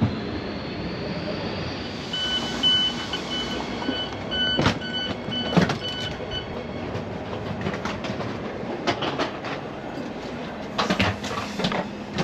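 Train noise at a station: a steady rumble with a repeated high electronic beeping for about four seconds, and several sharp clunks and knocks scattered through.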